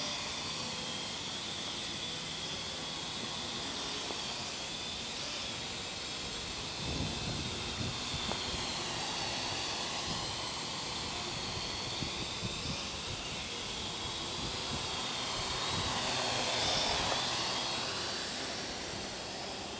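Parrot AR.Drone quadcopter in flight, its four brushless motors and propellers giving a steady high whine over an airy hiss, the pitch wavering as it manoeuvres. It grows louder around sixteen seconds in as it passes close, then fades.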